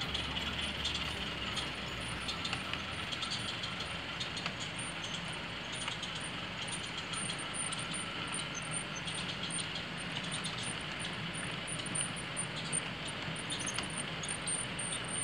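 HO-scale model passenger coaches rolling along model track: a steady, light running rattle with frequent small clicks as the wheels pass over rail joints.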